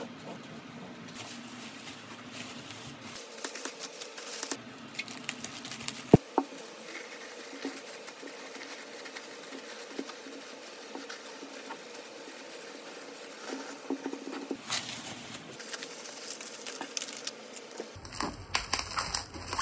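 Tissue paper and bubble wrap rustling and crinkling as hands wrap a parcel, in many small irregular crackles. A single sharp tap about six seconds in is the loudest sound, and the crackling grows denser near the end.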